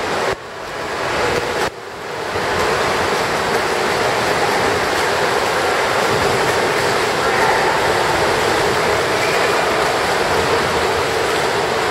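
Steady wash of splashing water from a swimmer doing front crawl in a pool, with the sound dipping sharply twice in the first two seconds.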